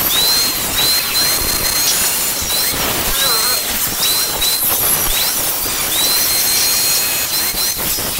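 Angle grinder cutting galvanized light-steel channel in a series of short cuts. Its high whine drops away under load during each cut and climbs back to full pitch when the disc is lifted, several times.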